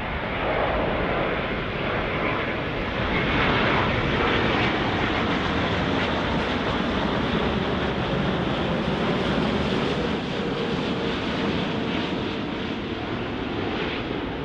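British Airways Boeing 787 Dreamliner's Rolls-Royce Trent 1000 engines on approach with gear down as the jet passes overhead: a steady, loud rushing that builds over the first few seconds and eases a little near the end, with a faint whine that drops slightly in pitch as it goes by.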